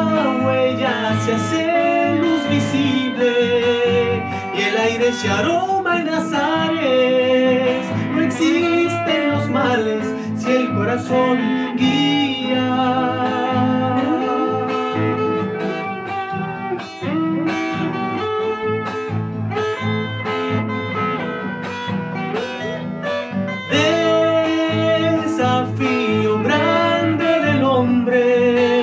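Folk song played on acoustic guitar, strummed and plucked, under a sung melody with vibrato. It eases off for a stretch in the middle and comes back up fuller about three-quarters of the way through.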